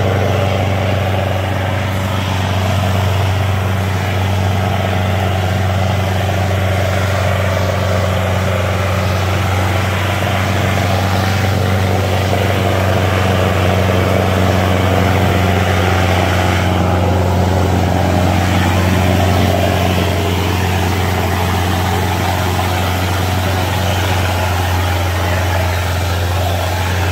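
Sonalika 750 tractor's diesel engine running hard under heavy load as it drags a disc harrow through the soil: a loud, steady, deep drone that holds its pitch.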